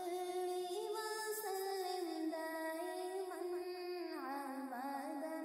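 Wordless vocal humming as background music, a voice holding long, slowly gliding notes with no instruments.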